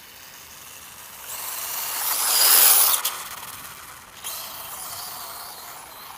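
Brushless RC dirt bike's motor and drivetrain running. It grows louder to a peak just before three seconds in, drops off suddenly, then carries on quieter.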